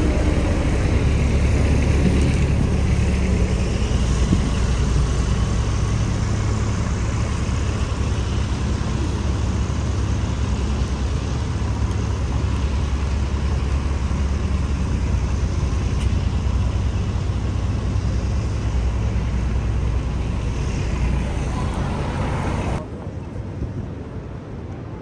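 City street traffic noise, a dense steady hum of vehicles with a low rumble. Near the end it drops suddenly to a quieter, duller background.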